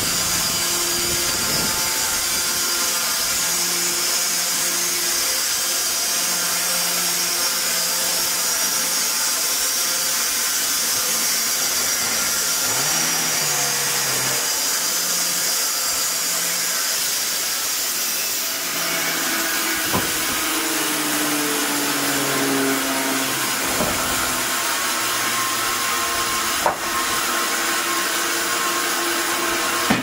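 Horizontal band sawmill running, its band blade cutting lengthwise through a log with a steady hissing whine over the hum of the drive. Two sharp knocks come through in the second half.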